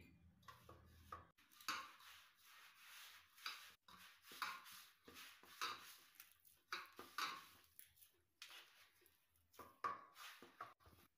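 A hand mixing and kneading wheat-and-maida dough with water in a stainless steel bowl: faint, irregular rubbing and scraping strokes, roughly one a second, as fingers press the dough against the steel.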